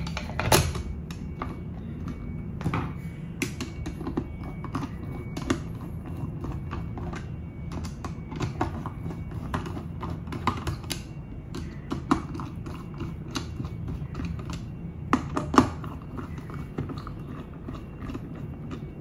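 Irregular light clicks and taps from cables being handled and fed through a flexible steel conduit, over a steady low hum.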